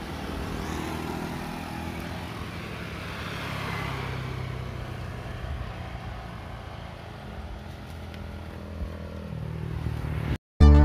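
A motorcycle riding along a road, its engine running steadily under wind and road noise. Near the end the sound cuts out briefly and loud music starts.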